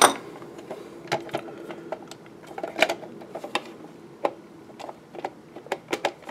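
Irregular sharp clicks and taps of hands handling and flexing the case of an Imation RDX USB docking station while it is being taken apart, the loudest click right at the start.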